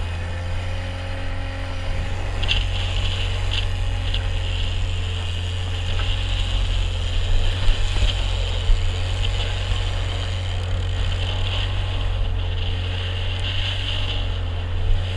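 Outboard motor of an open fishing boat running steadily under way, with a constant low hum and water rushing and splashing along the hull.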